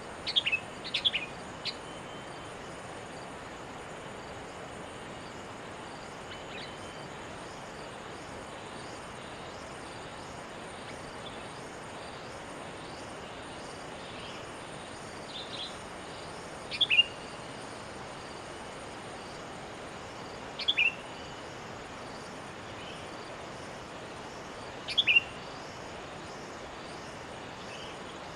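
Sooty-headed bulbul (kutilang) giving short, sharp chirping calls: a quick group of several in the first two seconds, then single calls every four seconds or so, over a steady background hiss.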